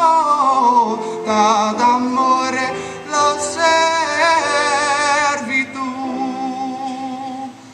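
A young man singing the closing phrases of an Italian art song with vibrato, accompanied by an upright piano, settling into held final notes near the end.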